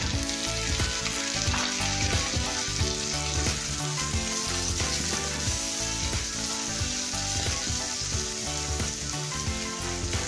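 Orange slices dropped into hot oil in a wok with fried onion and garlic, sizzling hard as they go in. A flat spatula stirs and scrapes them through the pan.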